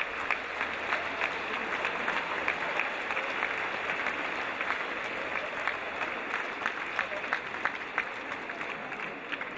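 Audience applauding, a dense patter of many hands clapping that starts to thin out and fade near the end.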